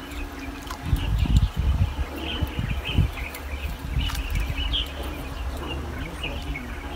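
Birds chirping, with low rumbling buffets on the microphone, heaviest about a second in and again around three seconds.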